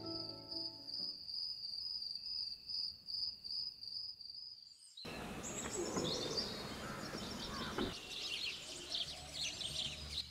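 A steady, high, finely pulsing insect trill, cricket-like, that cuts off about five seconds in. Then comes outdoor ambience with scattered faint high bird chirps.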